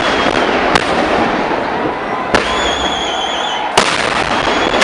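Huge temple fireworks crackers bursting. Sharp loud bangs come about every one and a half seconds over continuous dense crackling, with a high whistle heard twice.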